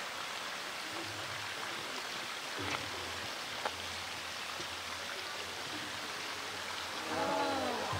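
Steady hiss of rain and running water, with a couple of faint knocks in the middle. Near the end a person's voice rises and falls briefly.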